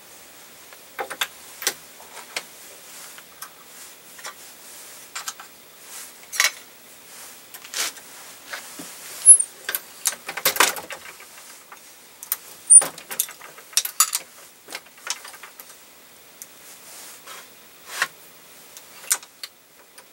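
Shotshell reloading press being worked and handled: scattered metallic clicks and clinks, with a few sharper knocks about ten and a half and thirteen seconds in.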